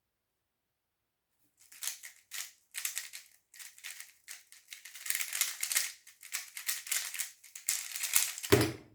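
A 3x3 speedcube (Magic Clothes YS3M) being turned very fast through a speedsolve: dense runs of rapid plastic clicking and rattling with short pauses between bursts, ending in a low thud.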